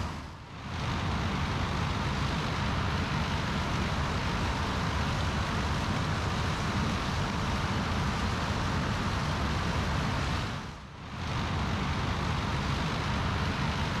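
Combine harvester and tractor engines running as a steady even noise, dipping briefly about half a second in and again near eleven seconds.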